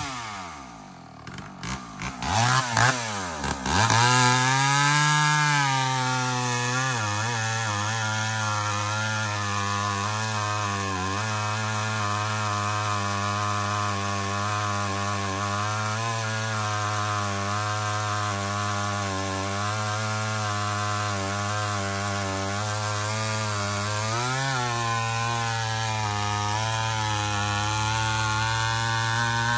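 Rebuilt chainsaw with its points ignition replaced by a coil, starting up and revving up and down for the first few seconds, then running steadily, with one brief rev about five seconds before the end. The builder says it is not tuned quite right.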